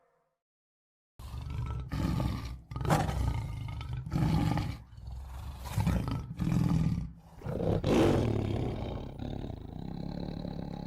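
Roaring sound effect of a Power Rangers Zord: about seven loud animal-like roars in a row with short breaks between them, starting about a second in, the last one long and drawn out.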